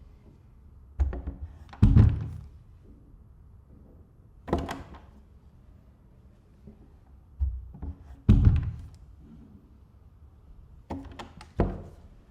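A door being shut again and again: three times a latch click is followed by a heavy thud, with one single softer thunk in between, about four and a half seconds in.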